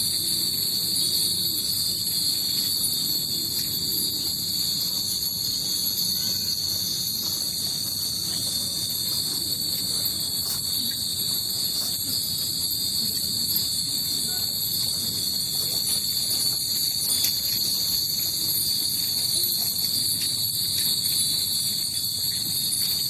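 Steady high-pitched chirring of insects, unbroken throughout. Beneath it is a low rustle with faint clicks, consistent with groundnuts being stirred through hot garri in a pan.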